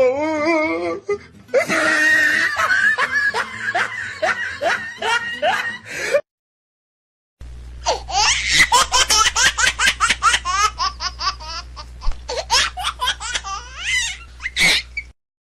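Loud, hearty laughter: rapid ha-ha pulses that swoop in pitch. It comes in two stretches, cut apart by about a second of dead silence a little past the middle.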